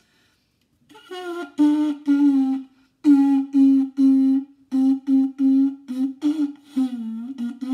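Homemade trumpet made from a cardboard tube with a plastic water-bottle mouthpiece and a paper bell, played by buzzing the lips. It plays a short tune of many separate tooted notes, mostly on one pitch, starting about a second in, dipping lower near the end and finishing on a long held note.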